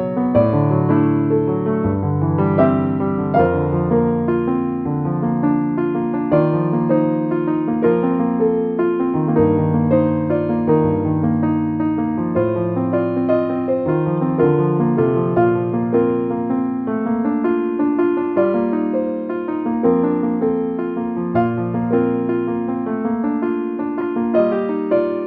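Background piano music: a continuous run of notes over held low bass notes.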